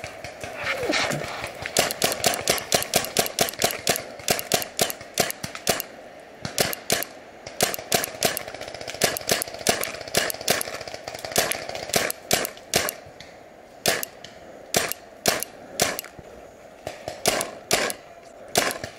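Paintball marker firing: sharp pops in rapid strings of several shots a second, broken by short pauses.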